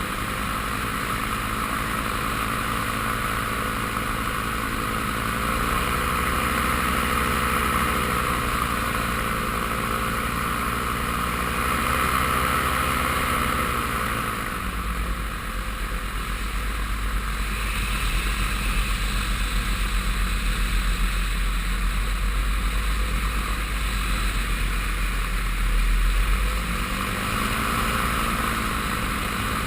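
Paramotor engine and propeller running steadily in flight, its pitch rising and falling a little with throttle changes, with a steady rush of wind.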